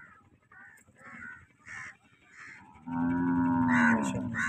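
A cow gives one long, low moo, starting about three seconds in, its pitch dropping slightly at the end. Crows caw faintly before it.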